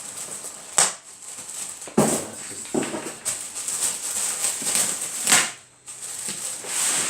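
Packaging rustling and crinkling as parts are unpacked and handled, with four sharp knocks of items being set down or bumped.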